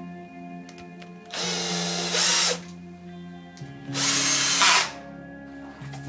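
Cordless power screwdriver running the bolts of a bicycle disc-brake rotor into the hub, in two short whirring bursts of about a second each. Background music with held notes underneath.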